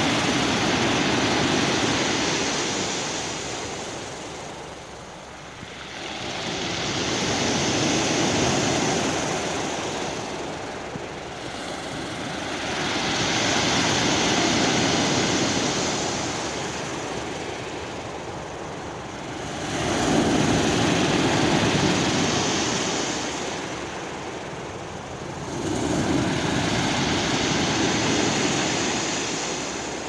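Waves breaking on a pebble beach and washing back over the stones. Five surges about six seconds apart, each swelling to a hiss and then fading.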